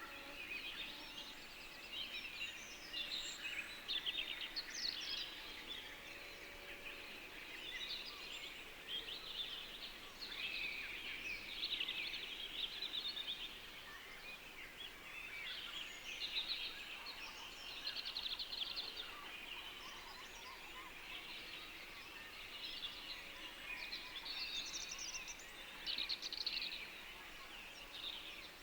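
A chorus of many small birds chirping and singing at once, with short overlapping calls and trills that keep coming without a break.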